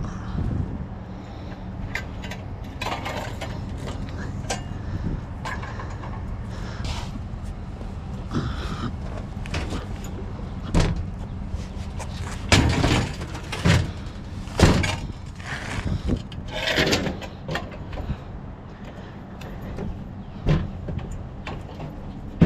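Scrap being handled and moved by hand: scattered clanks, knocks and scrapes, busiest about halfway through. Under them runs a steady low hum from an idling vehicle.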